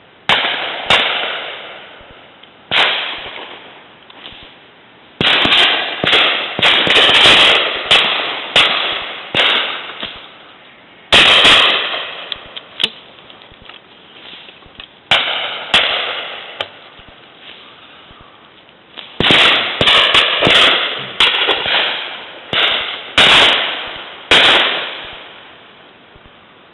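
Shotgun shots on a driven game shoot, two dozen or more, fired singly and in quick pairs and runs. Each is a sharp crack that fades away over about a second.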